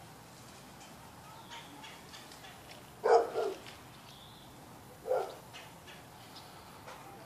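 A dog barking: a loud bark about three seconds in, and another about two seconds later. Faint bird chirps sound in between.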